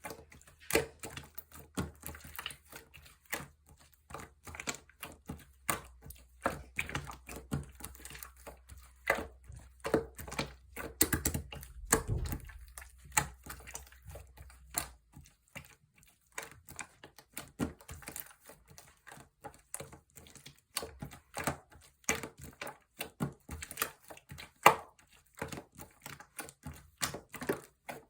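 Slime being squeezed and pressed by hand, making a quick, irregular run of small wet clicks and pops, several a second.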